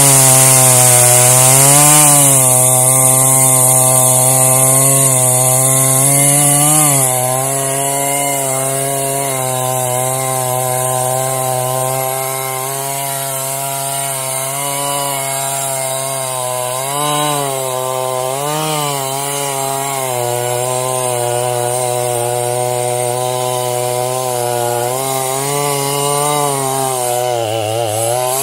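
Two-stroke chainsaw held at full throttle, ripping a log lengthwise in a homemade chainsaw mill. The engine note stays steady under load, dipping briefly a few times as the chain bites and sagging more deeply near the end before it recovers.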